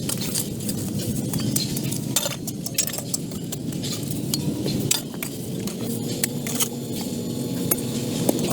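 Many light clinks and ticks of hard objects knocking together, irregular, over a steady low rumble.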